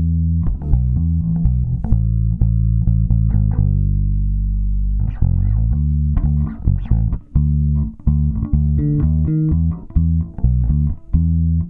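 Electric bass guitar playing a line of short plucked notes, with one note left to ring out for about a second and a half midway. It is heavily compressed by fold-back compression: a stereo-linked dbx 164 compressor with the output of one channel fed back into the other.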